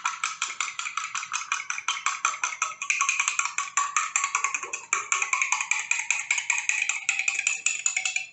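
A metal fork beating an egg into milk inside a glass jar: quick, even clicks of fork on glass, about eight a second, stopping abruptly near the end.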